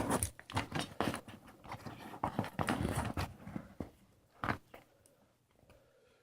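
Close crackling and clicking of power-supply cables and a SATA power connector being handled and pushed into a hard drive, dense for about four seconds, then a few scattered clicks.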